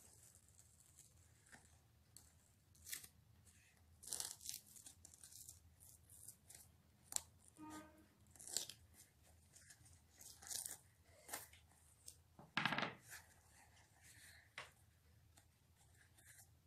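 Masking tape being pulled off the roll in short rips and pressed onto a canvas sneaker. The rips come one after another at uneven gaps, with one louder, longer rip about three quarters of the way through.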